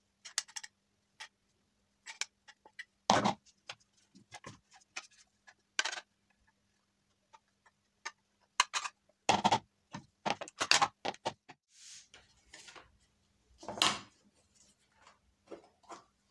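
Irregular clicks and knocks of hard plastic parts of a hand-cranked rotary drum grater being handled, scraped and taken apart, a few knocks louder than the rest.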